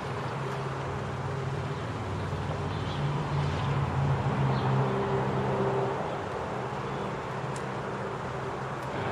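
Outdoor background with a low engine hum that swells about three seconds in and fades again by about six seconds, as of a motor vehicle passing. A few faint bird chirps are also heard.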